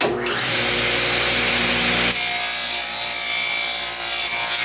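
Table saw switched on, its motor whine rising over the first half second as the blade comes up to speed. About two seconds in the blade starts crosscutting a thick wooden block fed on a miter gauge, and the cut runs on steadily.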